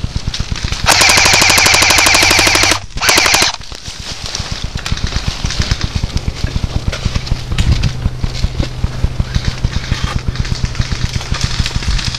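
Airsoft rifle firing full-auto bursts: a rapid, even clatter of about two seconds starting about a second in, then a shorter burst of about half a second. After that comes a quieter, continuous crackling.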